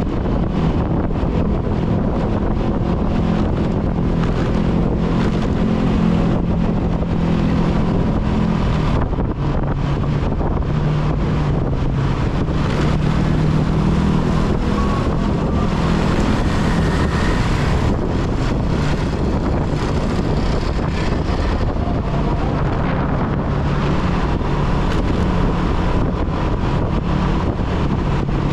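Motorcycle engine running steadily while riding, its note shifting a few times with speed, under heavy wind noise on the camera microphone, with the general noise of surrounding road traffic.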